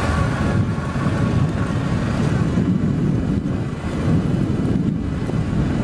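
Suzuki KingQuad 750 ATV riding along a gravel forest road, its single-cylinder engine running steadily under wind buffeting the microphone.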